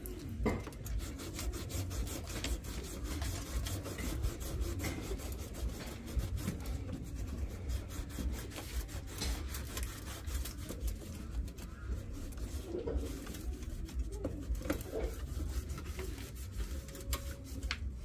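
Quick, repeated scraping and rubbing strokes on a washing machine's rusty steel frame as the rust is scrubbed off by hand.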